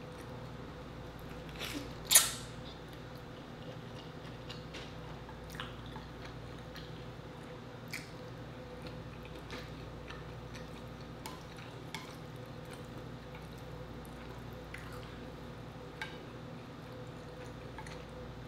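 Close-miked eating of spicy instant noodles with chopsticks: soft wet chewing and mouth sounds with scattered small clicks and smacks, the loudest a noodle slurp about two seconds in.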